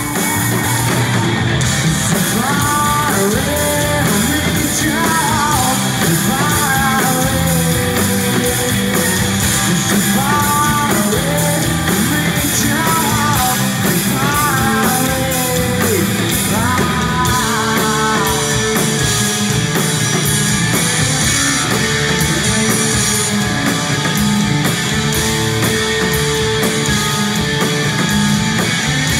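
Live rock band playing loud through the stage PA: a man singing over electric guitars, bass and drums. About halfway through the vocals stop and the band carries on with a repeating instrumental figure.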